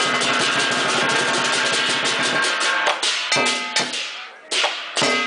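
Chinese percussion ensemble of drum, cymbals and gong playing a fast, continuous drum roll with ringing cymbals. About two and a half seconds in it breaks into a handful of separate accented strikes, each ringing out.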